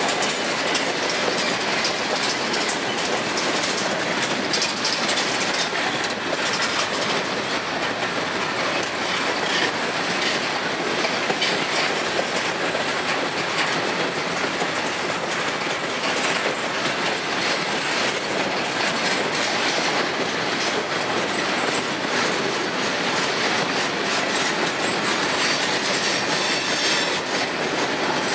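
Freight train of tank cars and a covered hopper rolling past close by, its steel wheels rattling and clicking on the rails in a steady, unbroken noise.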